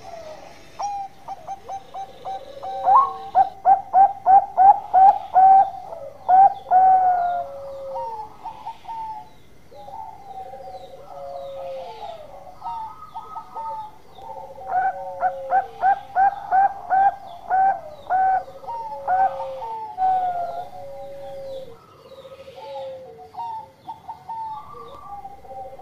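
Bangkok-type zebra dove (perkutut) singing its long cooing song. Two bouts of rapid, evenly repeated short coo notes, each lasting about five seconds, with slower, lower drawn-out coos between them.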